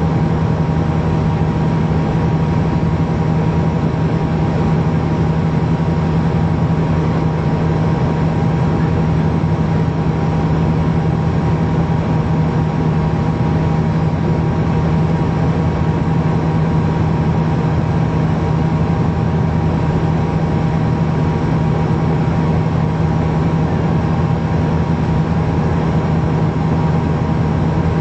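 Steady cabin drone of a Bombardier Q400's Pratt & Whitney PW150A turboprop engines and six-blade propellers, heard through the fuselage as a loud, even hum with a constant low tone, with the aircraft on final approach low over the airfield.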